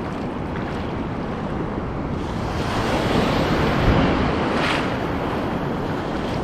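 Pacific surf breaking and washing over a sandbar, a steady rush that swells into a louder wave a few seconds in, with wind buffeting the microphone.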